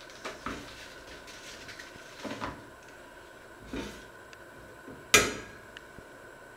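Kitchen clatter from pots and utensils being handled on a stovetop: several separate knocks and clinks, the loudest a sharp knock with a short ring about five seconds in.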